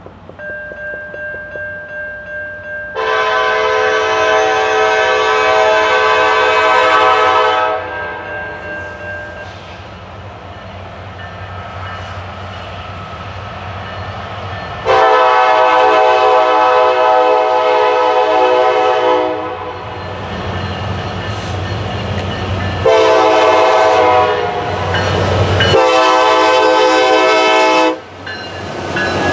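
Norfolk Southern freight locomotive's air horn blowing the grade-crossing signal as the train approaches: two long blasts, one short and a final long one, each a chord of several tones. Near the end the locomotives pass close, with engine and wheel noise.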